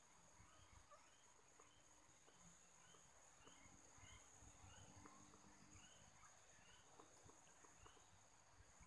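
Near silence: faint outdoor ambience with a small creature's short chirping call repeated about twice a second.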